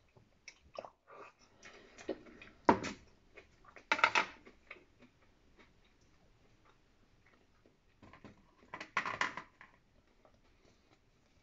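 Eating sounds from a bowl of miso soup: short clicks and knocks of chopsticks and a lacquered wooden bowl. There are two louder spells of sipping and breathing, about four seconds in and again near nine seconds.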